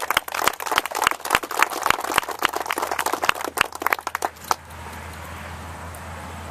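Audience applauding, the clapping stopping about four and a half seconds in. After it comes the steady rush of passing cars.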